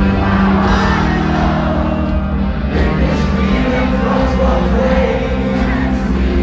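Rock band playing live through an arena PA, heard from within the audience, with singing over the band.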